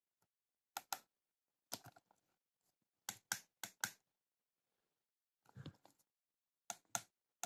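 Keypad buttons of a Satlink WS-6906 satellite finder clicking as they are pressed, about six presses, each a quick double click, with silence between. The keys are being used to key in the satellite longitude.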